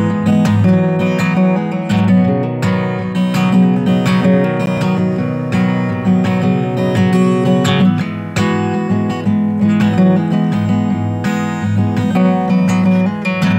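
Background music: a strummed acoustic guitar playing a steady chord pattern.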